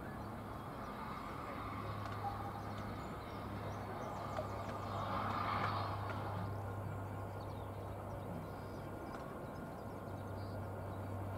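Distant steam tank locomotive hauling two carriages: a steady low rumble with a brief swell of hiss about five seconds in.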